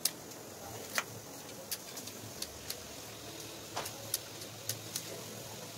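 Scissors snipping through crisp toasted bread, cutting it into small squares: about ten sharp, crunchy snips at irregular intervals.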